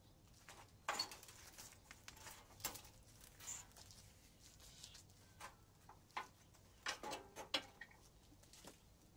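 Faint, scattered light clicks and knocks of sheet-metal and wire-mesh parts of an air-conditioner condenser being handled and lifted apart.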